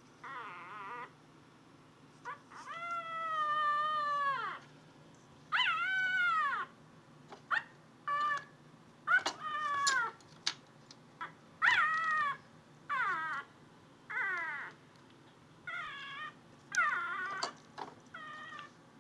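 A puppy whining: about fifteen high, wavering whimpers of varying length, one drawn out for about two seconds a few seconds in, the rest short.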